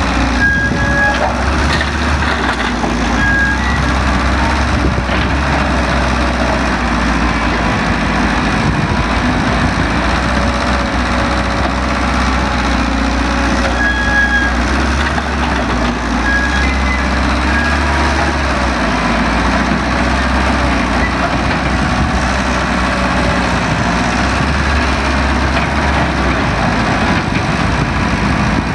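Heavy diesel engine of an excavator working, running steadily and swelling and easing under load, with a few short high chirps.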